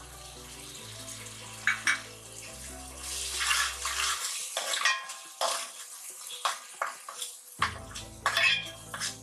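Ground green masala and turmeric sizzling in hot oil in a metal pot while being stirred, a steel ladle scraping and clinking against the pot several times. The sizzle swells about three seconds in.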